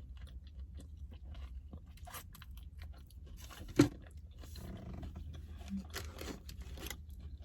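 A person chewing and crunching food close to the microphone, with scattered crisp crunches and one sharper crunch about four seconds in, over a steady low hum.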